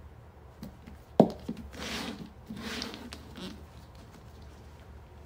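A sharp knock about a second in, then soft scuffling and rustling as a Maltese dog noses at upturned cups on a floor, searching under them for a hidden treat.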